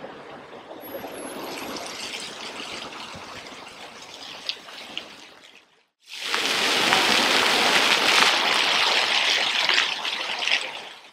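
Water splashing from ground-level jet fountains onto wet paving, a steady rush of falling water. It cuts out briefly about halfway through, comes back louder, and fades out near the end.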